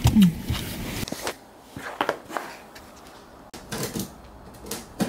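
Cardboard box being opened: a blade slitting packing tape and the cardboard scraping and knocking as it is handled, in a series of short separate sounds. A brief voice is heard right at the start.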